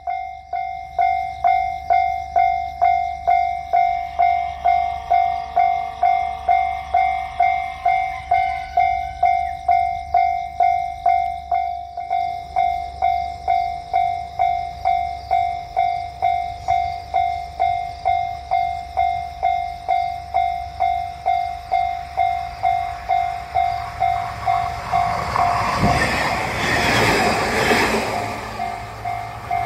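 Japanese level-crossing warning alarm ringing in a steady, evenly repeating ding. A rooster crows once, about five seconds in. Near the end a JR Kyushu commuter train runs over the crossing, its wheel-on-rail noise swelling loudly and then easing off.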